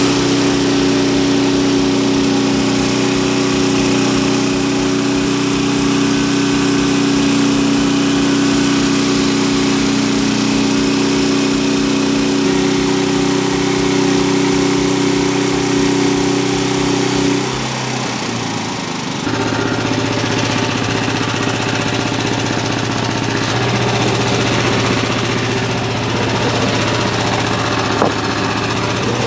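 An engine running steadily. About eighteen seconds in its sound changes abruptly, dipping briefly, then it settles into a lower, different steady running note.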